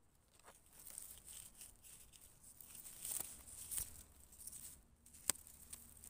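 Knife cutting small mushrooms out of moss and pine-needle litter: faint, irregular rustling and crackling of needles and stems, with one sharp click about five seconds in.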